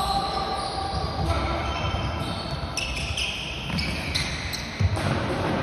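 Floorball game sounds in a sports hall: sports shoes squeaking on the court floor, and plastic sticks and ball clicking. There is a heavier thump near the end, all echoing in the large hall.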